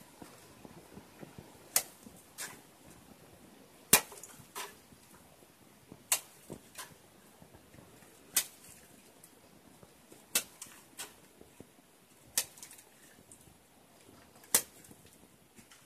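Cement slurry being flung with a brick trowel onto a block wall as a spatter-dash coat before plastering. It makes sharp smacks about every two seconds, each followed by a softer one about half a second later.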